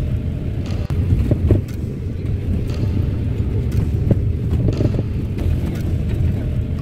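Steady low rumble of a moving bus and its tyres on a wet road, heard from inside the cabin.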